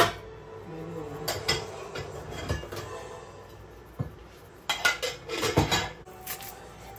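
Scattered knocks and clinks of kitchenware as a pepper tin is shaken over pork ribs in a glass baking dish, with the densest run of knocks about five seconds in.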